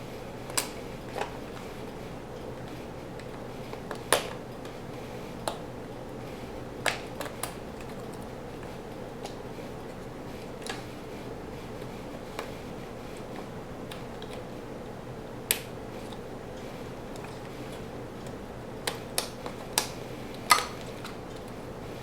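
Scattered light clicks and taps of a screwdriver, screws and plastic parts as screws are taken out and cables pulled from a Roomba 500 series robot vacuum's plastic chassis, over a steady low hum. The clicks come singly, then in a quick run of four or five near the end.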